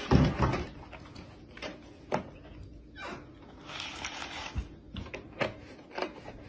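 A plastic gallon milk jug being handled: a thump at the start, then scattered clicks and rustles as the cap comes off, a soft pour of milk onto cereal about four seconds in, and clicks as the blue plastic cap is screwed back on.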